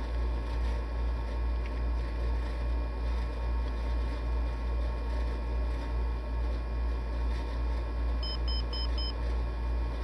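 Emerson SmartSet alarm clock's alarm 2 going off: a quick group of four short, high beeps about eight seconds in, the start of an alarm that rises gradually in volume. A steady low hum runs underneath.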